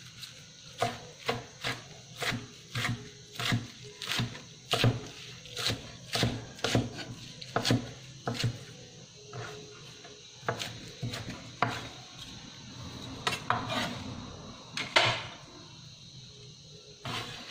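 Chef's knife chopping Thai basil leaves on a wooden cutting board: a run of sharp knocks, about two a second, that stops about two-thirds of the way in, followed by a few scattered strokes.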